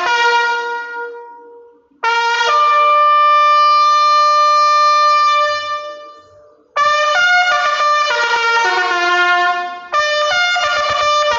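Instrumental music of slow, held chords with a brass-like sound, a new chord struck about every three to five seconds and each fading away before the next.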